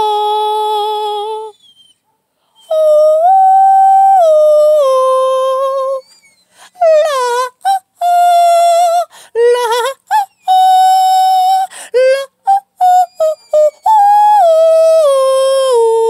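A Dogo Argentino howling along with a person singing. Long held notes step up and down in pitch, and shorter wavering, sliding howls come in the middle.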